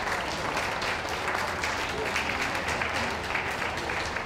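Crowd applauding steadily, a dense patter of many hands clapping.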